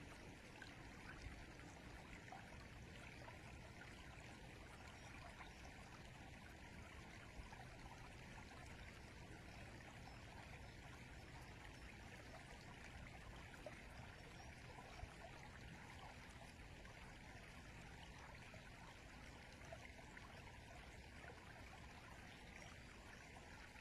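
Faint, steady sound of a river flowing.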